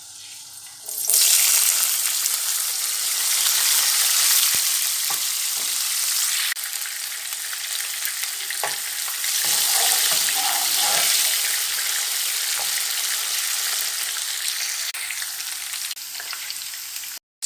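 Chopped onion, scotch bonnet and green pepper hitting hot oil in a pan about a second in, then frying with a loud, steady sizzle while being stirred, with a few light knocks of the spoon against the pan.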